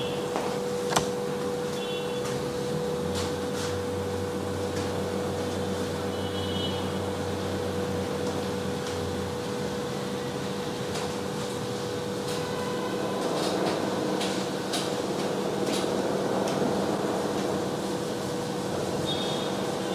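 Steady background hum and hiss of room noise, with a constant mid-pitched tone, a faint click about a second in, and a few brief faint high chirps.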